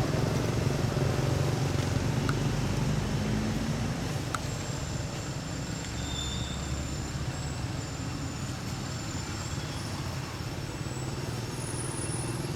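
Low rumble of road traffic, like a vehicle engine running, louder for the first few seconds and then easing to a steady background hum.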